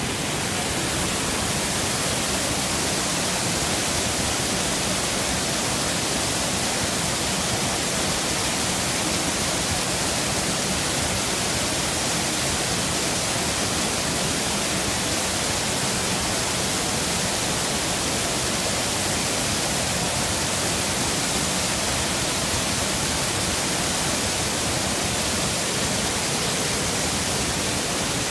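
Water pouring over the low stepped stone weirs of a city stream: a steady, even rush of falling water that does not change.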